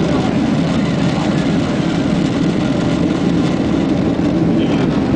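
Boeing 767-300 airliner's jet engines at takeoff thrust, heard from inside the cabin: a loud, steady, deep rumble with rushing noise during the takeoff roll and lift-off.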